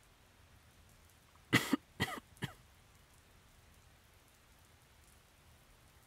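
A man coughing three times in quick succession about a second and a half in, the first cough the loudest: a sick man's cough. A faint steady patter of rain lies underneath.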